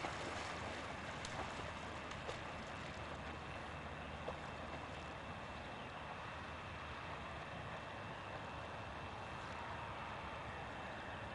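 Steady outdoor background hiss, with a few short splashes in the first few seconds as an English cocker spaniel plunges into the water and starts swimming.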